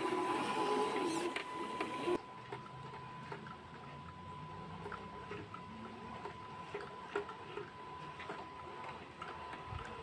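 Electric motor and gearbox of a 6x6 RC crawler whirring as it drives through a shallow stream, the pitch wavering with the throttle over a steady thin whine. About two seconds in the sound cuts to a quieter take with only a faint hum and light scattered ticks.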